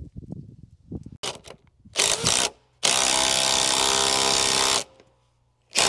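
A handheld power tool fastening bolts in timber framing, run in short bursts, then steadily for about two seconds, then in one more short burst near the end.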